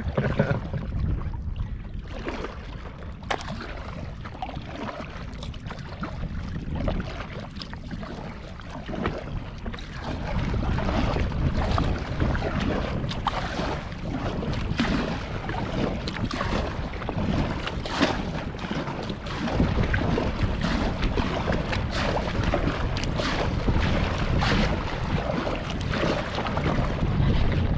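Wind buffeting the microphone over water splashing and lapping against a kayak as it is paddled, with scattered short splashes. The wind and water get louder from about ten seconds in.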